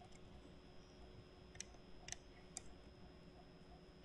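Faint computer keyboard keystrokes: three sharp clicks about half a second apart in the middle, over a faint steady hum.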